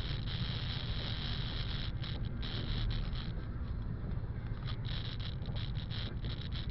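A car driving on a wet road, heard from inside the cabin: a steady low rumble of engine and tyres, with a high hiss that keeps dropping out briefly.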